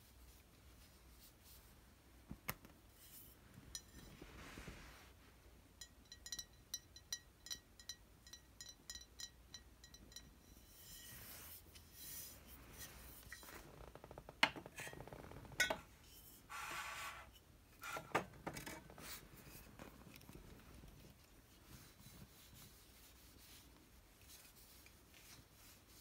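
Glass wine bottles in a wooden rack being dusted with a cloth and handled: a run of quick ringing taps on the glass, cloth rubbing over the bottles, and a few sharp clinks of glass on glass as a bottle is shifted in the rack, with a brief squeaky ring in the middle.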